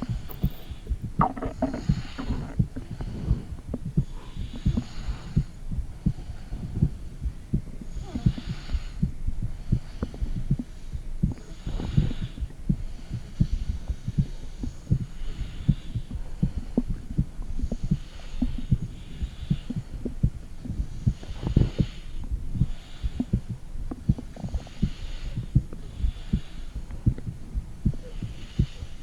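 Heartbeat picked up by a phone microphone pressed against the stomach: a fast, steady run of low thuds, with a soft swish every couple of seconds.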